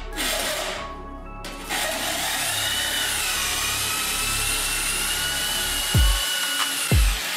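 A drill spins a Bosch carbide hole saw through plywood, a steady grinding cut with a wavering high whine that stops just before the end. Background electronic music runs under it, and its deep kick drum comes in twice near the end.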